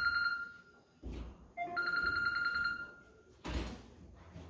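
Mobile phone ringing with a trilling, bell-like ringtone. One ring fades out about half a second in, and another sounds from about a second and a half to three seconds. A soft knock follows near the end.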